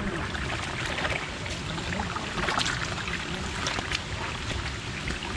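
Steady rushing of a waterfall and streams below, with rustling and crackling from footsteps through wet forest undergrowth.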